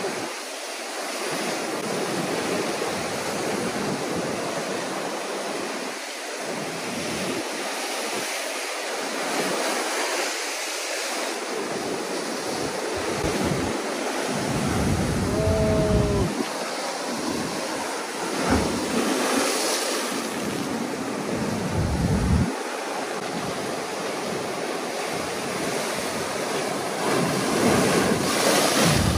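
Ocean swell breaking and washing over a rock ledge: a steady rush of surf, with several heavier wave surges in the second half.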